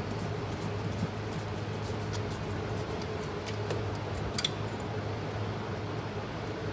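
Hands working on rubber heater hoses and their fittings behind the engine, making faint clicks and one sharper click about four and a half seconds in, over a steady low machine hum.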